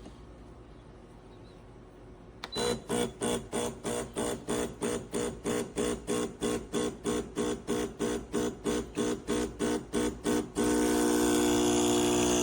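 Espresso machine's vibration pump: a click about two seconds in, then the pump pulsing on and off about three times a second for some eight seconds, a pulsed pre-infusion. Near the end it switches to running steadily as the shot is pushed through.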